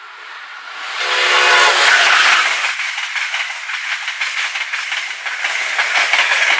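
Amtrak electric train with stainless-steel Amfleet coaches passing close at speed. A loud rush builds about a second in, with a brief pitched tone as the locomotive goes by, then the steady rushing rattle of the coaches over the rails.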